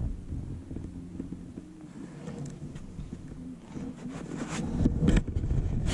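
Low rumble of wind on the microphone, with a few knocks and rubbing sounds from moving about in a plastic fishing kayak about four to five seconds in.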